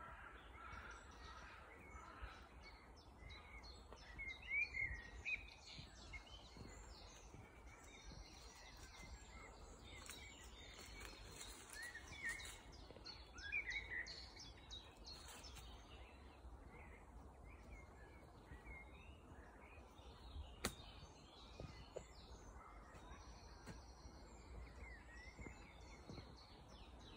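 Faint woodland birdsong: scattered short chirps and warbling phrases from several small birds, over a low steady rumble. One sharp click about two-thirds of the way through.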